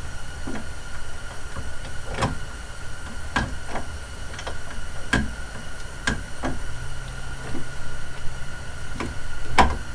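Manual gearbox being shifted through the gears by hand with a home-made extended shifter rod in a stationary car: a string of about ten clunks and clicks from the shifter and linkage, at uneven intervals.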